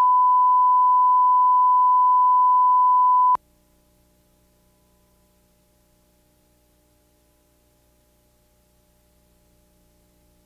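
Broadcast test reference tone played with colour bars: a single steady high pure tone that cuts off suddenly about three and a half seconds in, followed by near silence over the slate and countdown.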